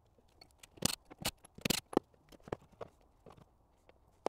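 Metal tools and pump parts clicking and clinking while a Bosch VE diesel injection pump is taken apart by hand: a cluster of sharp clicks about a second in, then scattered lighter ones.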